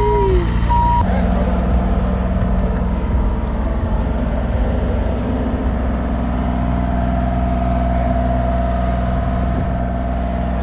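Mini excavator's diesel engine running steadily under hydraulic work. Its backup alarm beeps until about a second in.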